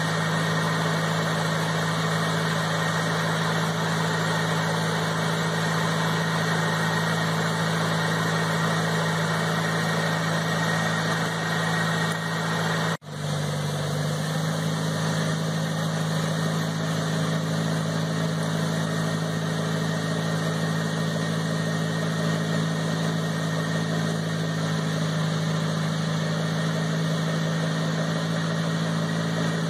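Multi-row orchard air-blast sprayer running steadily while spraying: a constant engine drone with a strong low hum under a broad rush of air from its fans. About thirteen seconds in, the sound breaks off for an instant and comes back with the hum slightly lower in pitch.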